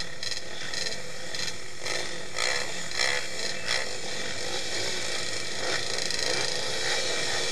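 Several pit bike engines running together on a start line, with riders blipping the throttles in short revs.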